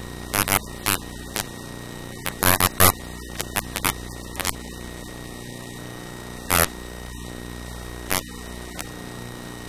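Steady electrical mains hum, broken by a handful of short knocks and rustles as the paper worksheet is handled and shifted under a pen. The loudest cluster comes about two and a half seconds in, with single ones near six and a half and eight seconds.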